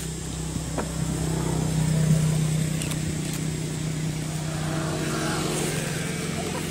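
A motor vehicle engine running steadily nearby with a low, even hum, swelling to its loudest about two seconds in and then easing off slightly.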